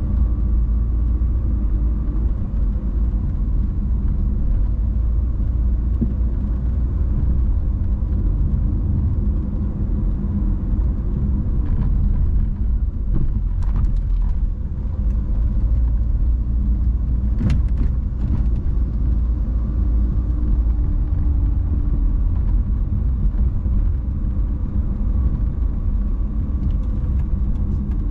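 Car driving along, a steady low rumble of road and engine noise, with a few faint clicks past the middle.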